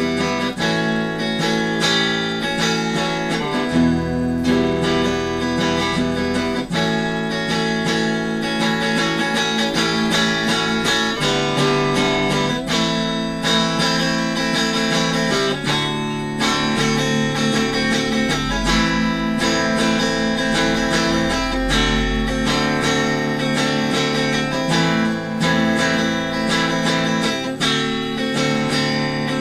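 Instrumental desert/ambient rock: a Squier Affinity Stratocaster electric guitar, played through a Fender Frontman 15G amplifier with a clean tone, strumming chords in a continuous, even flow.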